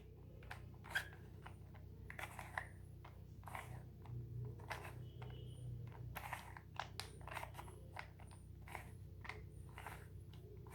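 Plastic 3×3 Rubik's cube layers being turned by hand, a quick run of irregular clicks and scrapes as the corner algorithm is repeated.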